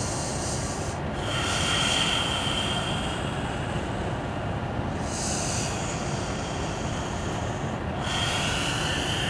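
A yoga practitioner's slow, deep, audible breathing, hissing through the throat: long breaths in and out alternating, about two full breaths.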